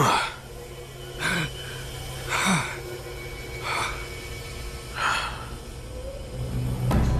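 "Escarlata" M556 pistol sound effect: single shots repeated a little over a second apart, each a short burst with a tone that falls in pitch, over a steady low hum.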